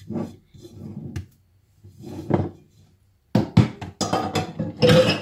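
Mixing bowl being moved and set down on a kitchen counter: a quick run of knocks and clatter beginning about three seconds in, after a few softer, duller handling sounds.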